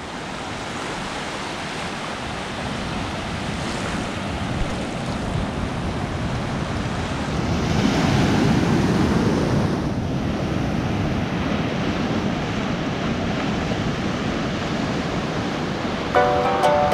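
Sea surf washing in around shallow water, a steady rushing wash, with a wave breaking close by about halfway through that is louder for a couple of seconds.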